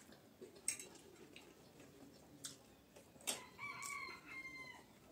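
A rooster crows once, faintly, a single drawn-out crow of about a second starting some three and a half seconds in and dropping off at the end. Two sharp clicks, the louder one about a second in, the other just before the crow.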